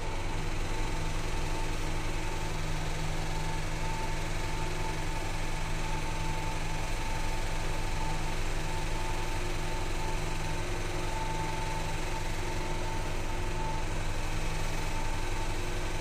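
Old Fujitec elevator car travelling down without stopping: a steady low hum with a thin high whine that wavers in strength and fades near the end.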